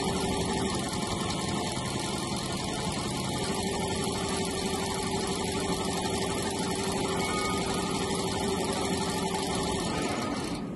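Single-head multi-needle computerized embroidery machine running and stitching a design at speed: a steady, rapid mechanical sound with a faint hum.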